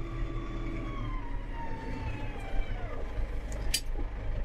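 Claas Arion 430 tractor heard inside its cab: a steady engine hum with a drivetrain whine that falls in pitch as the tractor slows from reversing in B4. A sharp click comes near the end.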